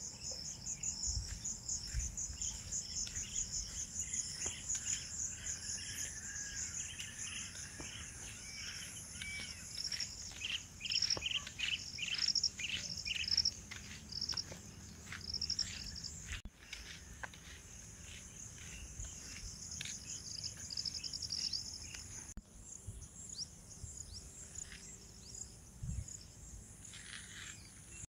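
A high, rapidly pulsing chorus of insects trilling throughout, with bursts of short bird chirps, busiest about ten to fourteen seconds in.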